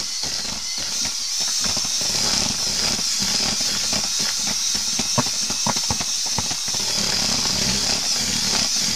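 Power drill with a mixing paddle running steadily as it churns fishing groundbait in a plastic bucket, with a continuous high motor whine and irregular scraping and knocking as the paddle stirs the crumbly mix and hits the bucket.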